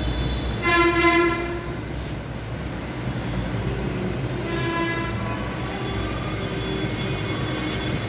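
Train horn blowing in two long blasts, one about a second in and another from about four seconds in, over a steady low rumble.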